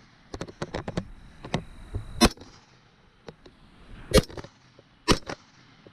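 Gunshots: three sharp single shots a second or two apart, the first about two seconds in, with lighter clicks and knocks before them.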